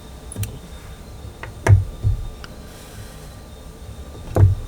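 Handling noise from crochet work: a few light clicks and three louder dull knocks as the piece and tools are moved about and bumped on the work surface.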